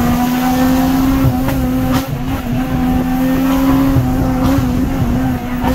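Car engine running at high revs with a steady, high-pitched note over road rumble, heard from inside the cabin during a street race. The note breaks briefly about two seconds in and steps again near the end.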